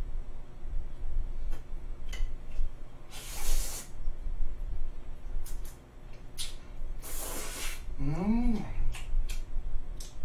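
A man slurping spaghetti noodles into his mouth twice, about three and seven seconds in, with wet chewing and small clicks between. Just after the second slurp comes a short hummed 'mm' that rises and falls.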